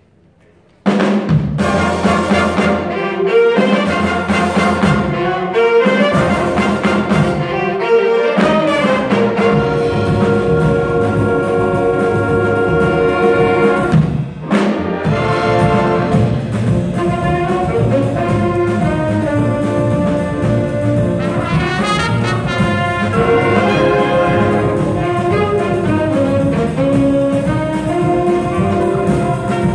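High school jazz big band (saxophones, trumpets, trombones, piano and drum kit) playing a samba. The band comes in abruptly about a second in with a run of short punched chords, then plays on continuously after a brief break about fourteen seconds in.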